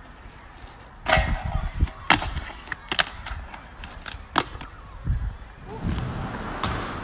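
Aggressive inline skates on a concrete skatepark: a sharp clack about a second in runs into a grind lasting almost a second, followed by several more sharp clacks of skates striking concrete and ledges, and the rumble of wheels rolling near the end.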